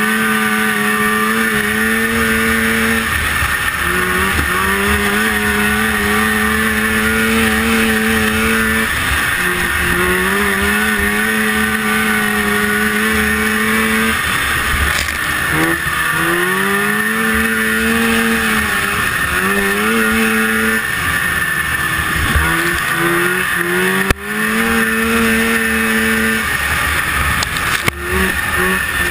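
1974 Rupp Nitro 340 snowmobile's free-air-cooled two-stroke engine at race pace, heard from the sled: it revs up and holds high, then drops off the throttle and climbs again, over and over as it works around the oval.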